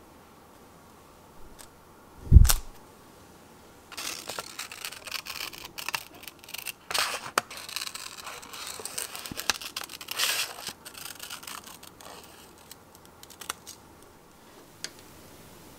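A clear acrylic stamp pressed down onto kraft paper with one thump a couple of seconds in, then scissors snipping and cutting around the stamped image in the paper for several seconds. A few light paper taps and rustles near the end as the cut piece is laid on a planner page.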